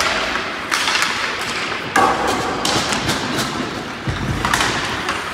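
Hockey puck and sticks knocking against the rink boards and ice: three sharp knocks and thuds, spread out over a few seconds, over the general noise of play in an ice arena.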